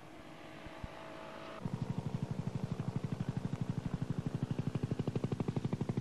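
A machine running with a fast, even throb of about ten pulses a second, starting abruptly about a second and a half in over a fainter hum.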